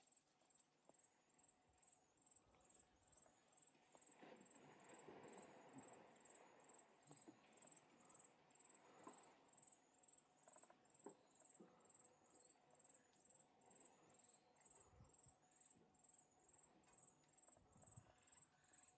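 Very faint outdoor ambience: an insect, cricket-like, chirps steadily with a high, regular pulse about twice a second. Faint sloshing and splashing of water comes from elephants moving in the water hole, strongest between about 4 and 11 seconds in.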